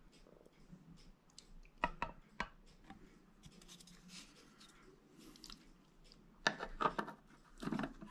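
Faint clicks and light wooden knocks as the small wooden hatch cover of a model ship is handled and set over its cargo hatch, with a couple of knocks about two seconds in and a denser run near the end.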